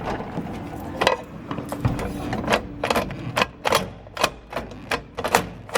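Irregular sharp metal clicks and clacks, about three a second, from the parts of a Kawneer push bar door latch being worked by hand.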